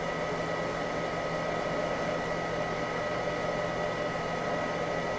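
Cooling fan of a Butterfly Labs Jalapeno bitcoin ASIC miner running steadily while the miner hashes: an even whirring noise with two constant high tones over it.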